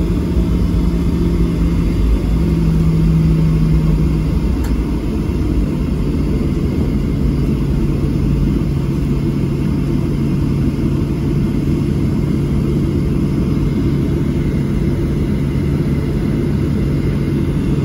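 Cabin noise inside a Boeing 737-700 taxiing: a steady low rumble from its CFM56-7B turbofan engines at idle, with a steady hum that drops slightly in pitch about four seconds in.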